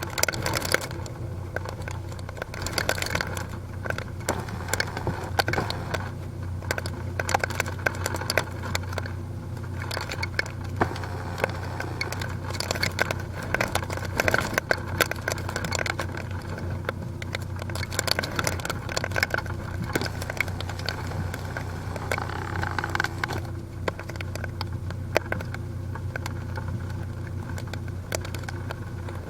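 Typhoon wind and rain, with many irregular clicks and crackles over a steady low hum.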